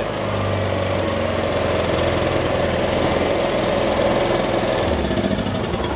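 Kipor Sinemaster IG2600 inverter generator's small four-stroke engine running steadily, just started on the first pull with the choke set to start.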